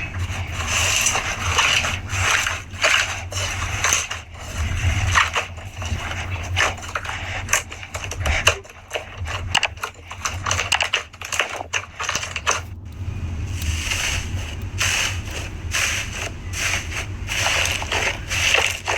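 Slime being squeezed and pressed by hand: irregular wet squishing with many small popping clicks.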